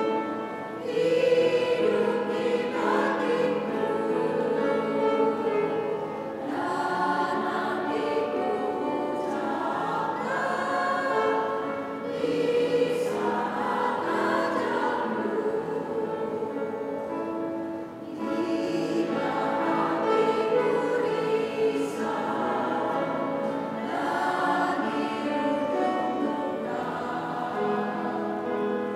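Women's choir singing a hymn in two parts, in sustained phrases of a few seconds each.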